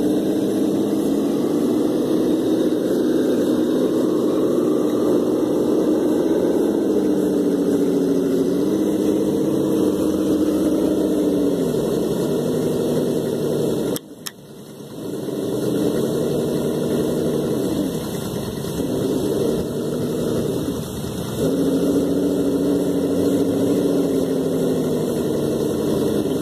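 Traxxas TRX-4 Defender RC crawler's electric motor and gear drivetrain whining under throttle as it crawls over roots and a plank. The pitch rises and falls as the throttle changes. The whine drops out briefly about halfway through, then picks up again.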